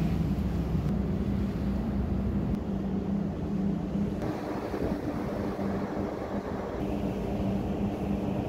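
Steady low hum of a ship's engines and machinery heard on the open deck, over a rushing noise of wind on the microphone. The hum is strongest in the first couple of seconds.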